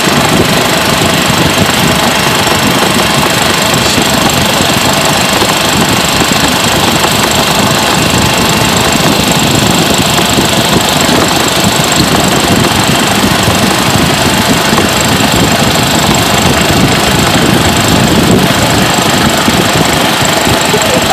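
Club Car golf cart's petrol engine running steadily under the load of towing a rider on a mattress, with a dense, fast rattle throughout.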